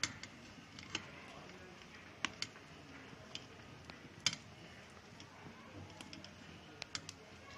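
Hot frying oil in a steel kadhai hissing faintly, with scattered sharp pops and clicks roughly once a second as besan batter is pressed through a perforated ladle and drops into it.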